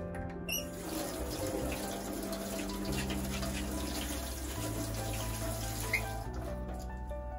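Kitchen faucet running water over cherry tomatoes in a stainless mesh colander above a steel sink. It comes on about half a second in and is shut off near the end, with a sharp click as the tap lever is moved.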